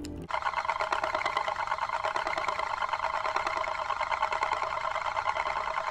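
Euler's disk, a heavy metal disc spinning and rolling on its edge on its mirrored base, making a continuous fast rattling whir. It starts abruptly just after the beginning.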